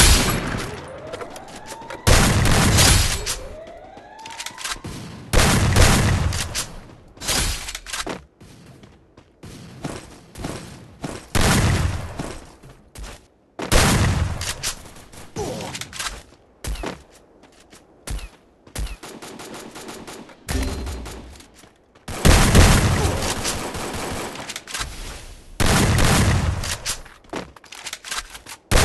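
A long series of loud bangs at irregular intervals, each dying away over a second or two, with faint rising whistle-like glides in the first few seconds.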